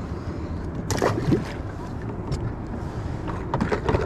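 Steady wind and water noise around a kayak, with a few short knocks and splashes about a second in and again near the end as a fish is let go over the side.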